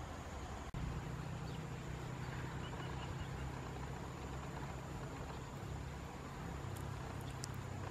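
Steady outdoor background: a continuous high, thin insect-like drone over a low hum, broken by a momentary dropout just under a second in, with a few faint high ticks near the end. The cormorant working the fish in its bill makes no clear sound of its own.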